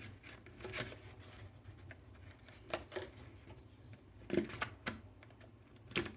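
A few scattered light clicks and knocks, with a small cluster past the middle, from plastic parts being handled.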